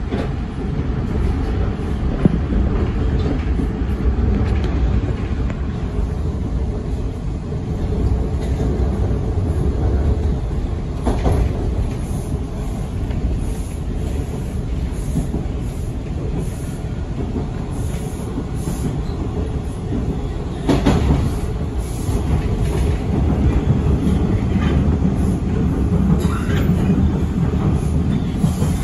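TTC Line 2 T1 subway train running on surface track, heard from inside the front car: a steady low rumble of wheels on rail, with two sharper knocks about a third and two-thirds of the way through.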